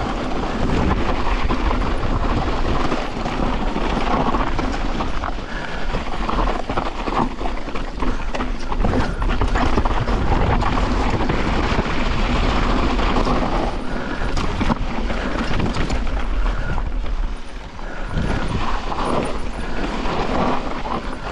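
Mountain bike riding down a rocky, loose-gravel trail: tyres crunching and skittering over stones with a continuous clatter of the bike's parts, heard close up, briefly quieter about three-quarters of the way in.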